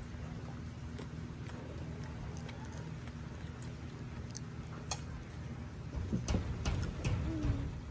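Scattered clinks and taps of cutlery on plates and dishes, busier near the end, over a steady low hum.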